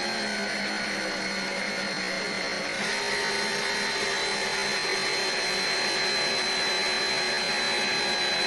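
Electric power drill running continuously with a steady high motor whine, getting slightly louder about three seconds in.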